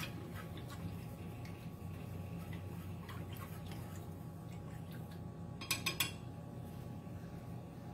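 Wooden chopsticks stirring milk in a small metal saucepan, with faint scrapes and light clicks against the pan. About six seconds in comes a quick cluster of sharp clicks as the chopsticks knock the pan's rim. A steady low hum runs underneath.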